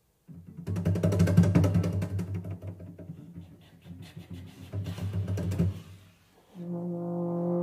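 Clarinet, horn and cello trio playing contemporary chamber music. After a moment of silence comes a loud passage of fast, rattling repeated attacks over low held notes, which fades. After a brief break near the end, steady held notes enter.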